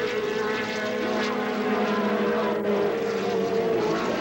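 Racing engines of open-wheel single-seater race cars running hard on track, a steady drone whose pitch falls slowly.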